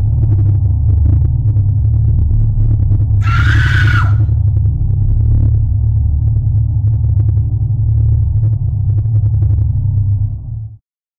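Loud, steady, low rumbling drone from the sound design of a film production-company logo, with a brief shrill screech about three seconds in. The drone cuts off suddenly shortly before the end.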